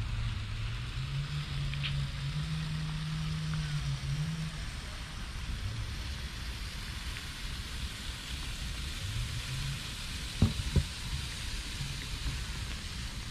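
A cat chewing and licking wet food from a metal dish, with two sharp clicks about ten seconds in. Under it runs a steady low hum that rises a step in pitch and fades out after about four seconds.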